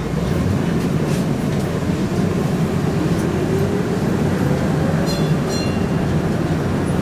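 A UTDC/Hawker Siddeley CLRV streetcar running, heard from inside: a steady rumble of wheels on rail and the running gear, with a faint whine rising in pitch through the middle and a brief high-pitched squeal about five seconds in.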